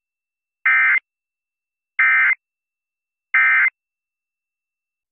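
Emergency Alert System digital data tones: three short, identical buzzing bursts of coded tones about 1.3 s apart, with dead silence between. Bursts this short are typical of the end-of-message code that closes an alert.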